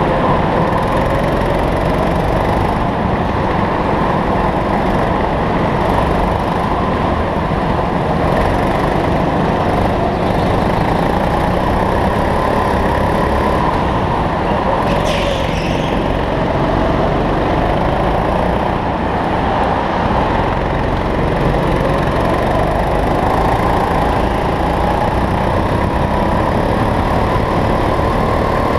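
Go-kart engine heard from on board, running hard with its pitch repeatedly rising and falling as the throttle is opened and lifted around the track. A brief high squeal about halfway through.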